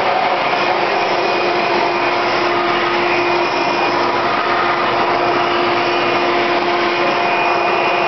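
Hoover Encore Supreme upright vacuum cleaner with its 7-amp motor running steadily: a constant rush of air with a steady motor whine over it.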